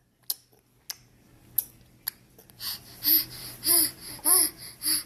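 A baby making mouth noises: four sharp mouth clicks in the first two seconds, then a run of short babbling sounds, each rising and falling in pitch, about one every half second or so.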